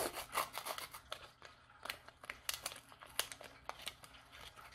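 A small Pokémon trading-card pack wrapper being torn open and crinkled by hand: a run of sharp, irregular crackles and rustles, loudest at the start.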